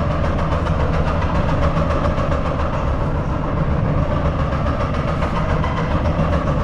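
Steady low mechanical drone and rumble filling an empty underground metro station.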